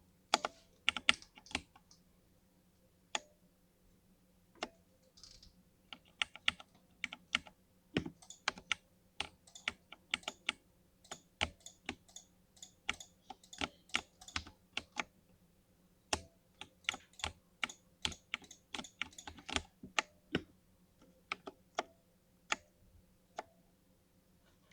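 Typing on a mechanical gaming keyboard with linear switches: irregular keystrokes, sometimes in quick runs and sometimes with pauses of a second or more.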